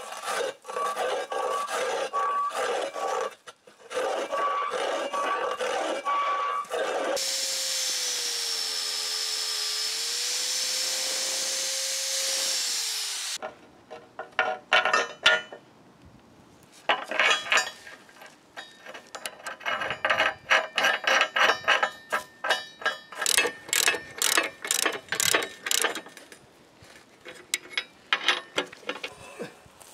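Metalworking sounds: rhythmic rasping strokes for the first seven seconds, then a power tool running steadily for about six seconds with its whine dipping slightly in pitch midway. From about fourteen seconds on come runs of rapid clicks from a ratchet spanner tightening the nuts on a bolted steel bracket.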